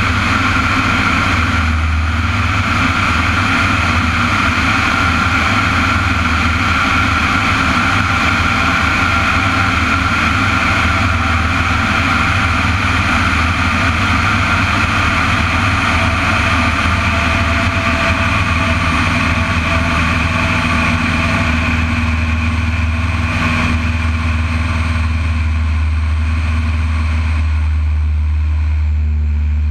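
Propeller aircraft engines running in close formation flight, a steady loud drone mixed with rushing wind over a wing-mounted microphone.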